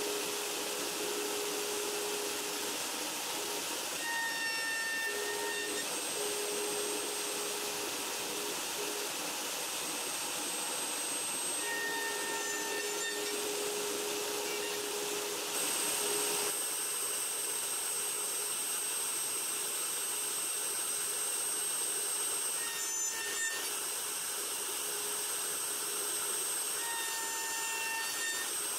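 Router running steadily with a 5/16-inch, 8-degree dovetail bit cutting dovetail slots into a maple board. A whine comes and goes several times over the steady whirring.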